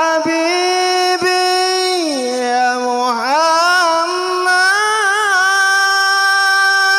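A man's solo voice singing an Arabic sholawat unaccompanied, holding long melismatic notes with wavering ornaments, the melody dipping about two seconds in and climbing again a second later.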